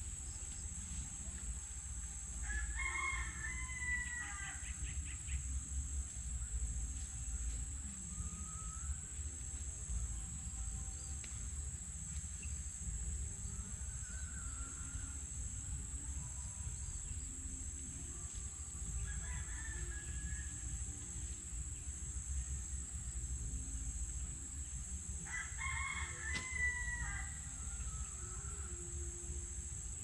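A rooster crowing twice, about three seconds in and again near the end, with a fainter crow midway. Underneath runs a steady high-pitched insect drone.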